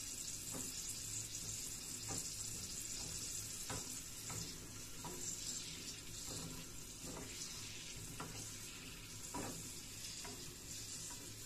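Garlic cloves and almonds frying in olive oil in a small pan: a quiet, steady sizzle, with a few light clicks of a wooden spoon stirring against the pan.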